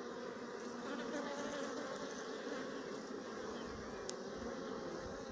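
Steady hum of a colony of Sicilian black honeybees swarming over an open brood frame, many bees buzzing together.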